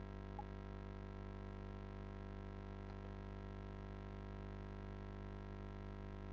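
Steady electrical hum of the recording chain, a low buzz with many evenly spaced overtones and no change throughout; a faint short tick about half a second in.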